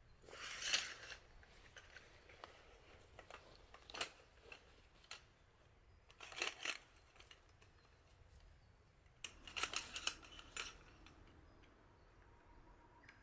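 Scattered crisp clicks and crinkles from small items being handled, in four short bunches: under a second in, about four seconds in, around six and a half seconds, and a longer cluster from about nine to ten and a half seconds, over a faint steady background.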